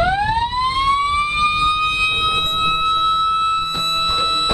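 A high whine from a shipboard Mk 49 RAM missile launcher. It rises steeply over about the first half second, then holds one steady pitch with several overtones. A few faint clicks come near the end.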